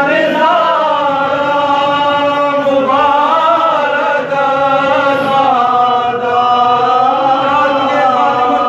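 A man chanting a mournful Urdu lament in long held notes that bend slowly, with hardly a break: the sung masaib passage of a Shia majlis reciter.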